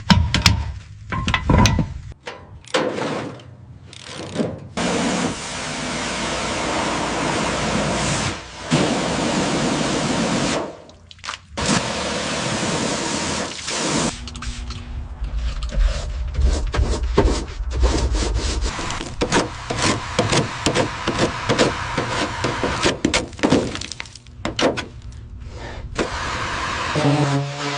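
Workshop tool noise from car restoration work: long stretches of steady hissing noise that start and stop abruptly, with sharp knocks and bursts of rapid clicking between them.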